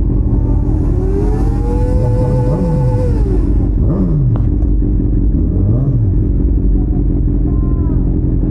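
Superbike engines idling in a group while riders blip the throttles. One engine is held at raised revs for a couple of seconds near the start, followed by about three quick revs that rise and fall.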